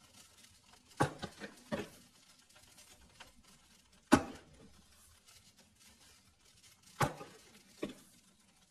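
A metal spoon knocking and clinking as spoonfuls of sugar are scooped from a plastic container and sprinkled over apple slices in a frying pan. There are about six short, sharp knocks in three clusters, the loudest about four seconds in.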